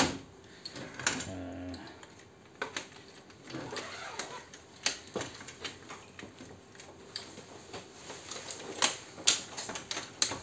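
Plastic and sheet-metal parts of a dismantled Tally T5040 passbook printer being handled and pulled apart: irregular sharp clicks, knocks and rattles.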